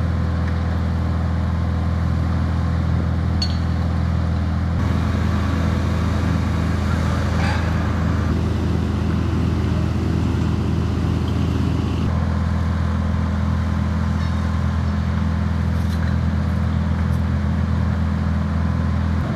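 Fire-brigade pump engines running steadily, a deep even hum, as they pump out floodwater through fire hoses.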